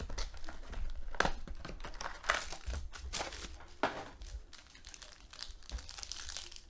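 Foil trading-card pack from a Panini Pantheon football box crinkling in the hands and being torn open, a run of sharp, irregular crinkles and rips.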